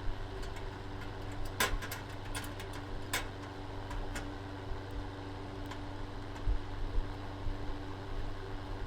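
A fan-forced electric space heater running with a steady hum. Over it come a few sharp clicks in the first half from a screwdriver driving a screw into the heater's metal handle.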